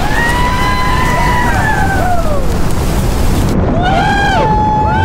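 A steady rush of wind noise with people screaming over it: one long held scream that slides down in pitch about two and a half seconds in, then short up-and-down yells near the end.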